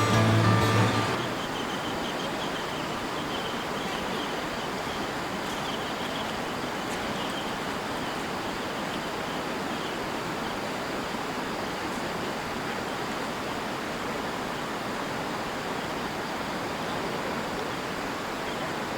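River water flowing: a steady, even rush. Background music ends about a second in.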